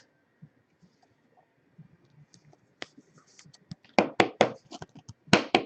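Hands handling trading cards and their packaging on a table. Faint light handling at first, then a run of sharp taps and scrapes from about three seconds in, the loudest near the end.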